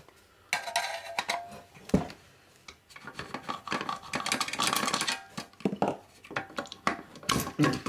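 Metal clattering and scraping from a screwdriver working the large screws of a military radio's power supply unit and from the unit being handled in its aluminium base plate. There is a sharp knock about two seconds in.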